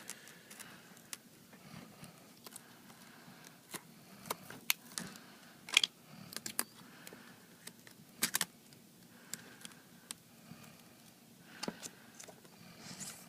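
Scattered small clicks and taps of a pry tool and fingers on an iPad 3's glass and frame as the glued front glass is lifted off. The taps come irregularly, with the sharpest ones a little past the middle.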